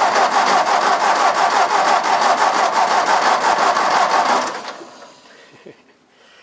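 The Ford Jubilee tractor's four-cylinder engine being cranked over by its starter, a fast even chugging of about six or seven pulses a second, for about four and a half seconds, then the starter stops without the engine catching. It is a hard start after the tractor has sat unused for over a week.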